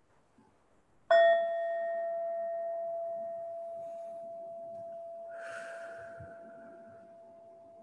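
Singing bowl struck once about a second in, ringing with a clear tone; its higher overtones fade within a couple of seconds while the main tone dies away slowly.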